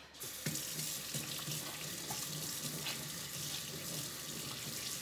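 Kitchen tap turned on and running steadily into the sink.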